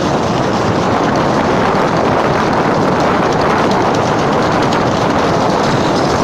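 Sled sliding fast down a snowy slope: a loud, steady rush of wind on the microphone mixed with the rumble and hiss of the sled running over the snow.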